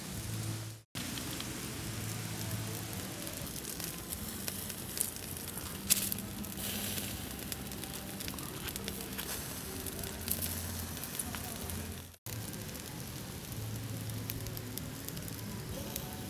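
Honey-glazed duck sizzling and crackling as it roasts over embers, a steady hiss with scattered pops. The sound cuts out briefly twice.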